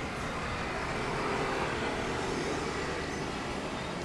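Distant Airbus A350 jet engines (Rolls-Royce Trent XWB) at takeoff power, a steady rushing noise with a low rumble that swells slightly about a second in.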